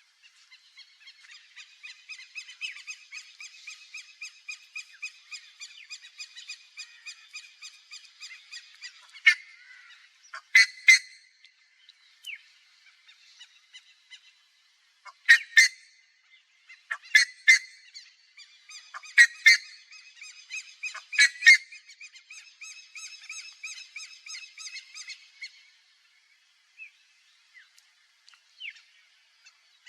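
Buff-necked ibis calls: a fast run of harsh, nasal notes at about four a second, then loud honking notes, several in pairs, from about nine seconds in, over a second fast run. The calling dies away near the end.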